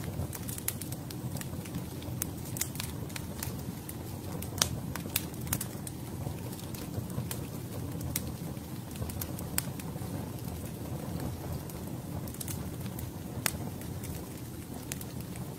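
Forest fire crackling: scattered sharp cracks, a few a second, over a steady low rumble.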